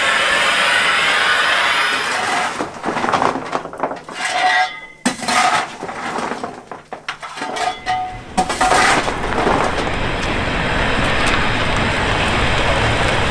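Steam locomotive hissing steadily. From about two seconds in, a fireman's coal shovel clanks and scrapes against the metal of the cab footplate, with ringing metallic clinks. The steady hiss returns near the end.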